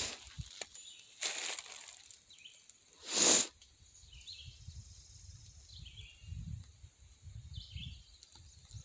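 Rustling and low thumps of a phone being carried along a woodland trail, with a short rustle about a second in and a louder one about three seconds in, and faint bird chirps now and then.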